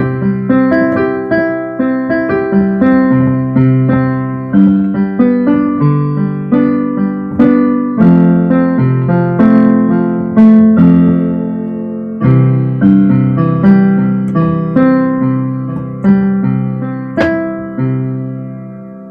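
Digital keyboard on a piano voice, played with both hands: a flowing run of chords and melody notes over a moving bass line, ending with the last notes left to ring out.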